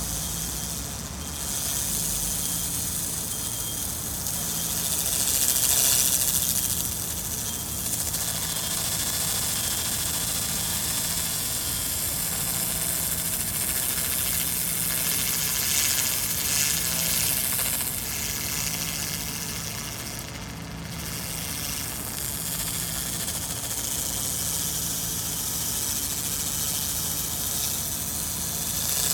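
Handheld laser cleaner ablating rust off a steel wheel rim: a steady high hiss that swells and fades as the beam sweeps the surface, over a low hum that comes and goes about every two seconds.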